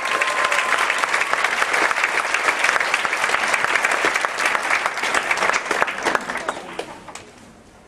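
Audience applauding, dying away over the last couple of seconds.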